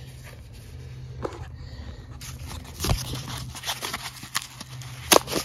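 Footsteps and shuffling over debris on a concrete floor, with scattered clicks and knocks, a sharp one about three seconds in and another near the end, over a low steady hum.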